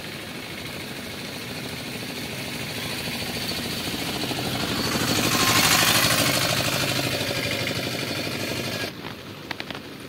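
A rapidly pulsing engine passing close by, growing louder to a peak about halfway through, then fading before it cuts off suddenly near the end; a few short clicks follow.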